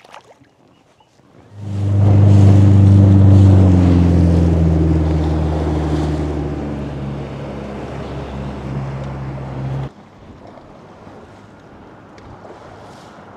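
Small jet boat's outboard engine running at speed with water rushing past the hull, its pitch easing slowly down as it fades. It stops abruptly about ten seconds in, leaving wind on the microphone and water lapping.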